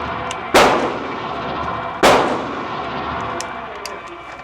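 Two gunshots about a second and a half apart, each with a long echoing decay from the range.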